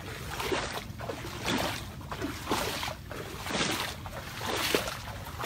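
Floodwater sloshing and swishing with each stride as a person wades through it, about one stride a second.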